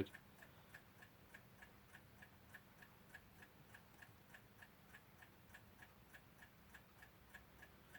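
Faint, steady ticking of a mechanical clock, about five ticks a second.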